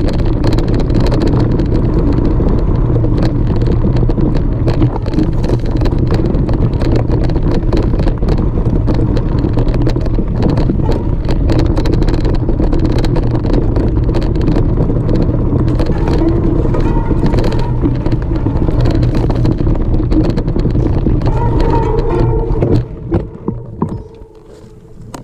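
Mountain bike riding over a rocky singletrack: a loud, steady rumble of wind on the action camera's microphone, with the clatter of tyres and frame over loose stones. It drops away near the end as the bike comes to a stop.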